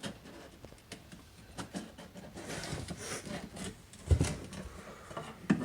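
Washing machine drain pump filter being twisted loose and pulled out by hand: plastic rubbing and clicking, with a sharp knock about four seconds in and another near the end.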